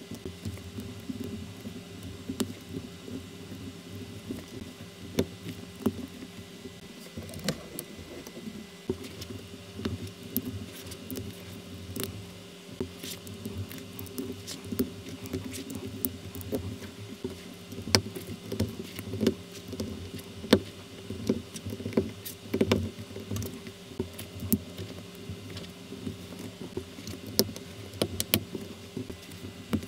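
Small LEGO-compatible plastic bricks being handled and pressed together: many irregular clicks and snaps as pieces are fitted, over a steady low hum.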